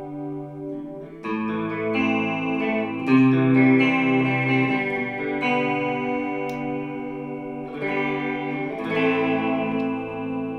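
Electric guitar played through a Brainwaves pitch-shifter pedal: sustained chords thickened by the pedal's effect, changing every second or two.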